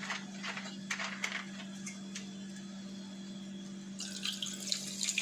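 Sprite being poured over ice, mint and lemon in a glass, fizzing; the hiss of the bubbles grows much louder about four seconds in. A steady low hum runs underneath.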